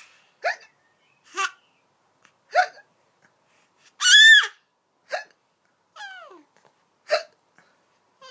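A woman's pretend hiccups and a toddler copying them: short, sharp hic sounds about once a second, with one longer, louder, high-pitched squeal about four seconds in.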